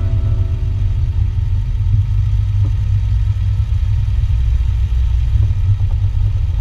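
Low, steady rumble of a vehicle engine, with the last notes of background music dying away in the first second.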